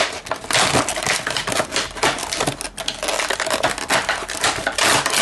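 Stiff plastic packaging crackling and crinkling: a clear clamshell blister pack and a plastic bag being handled as an air pistol is pulled out of them, a dense run of sharp crackles.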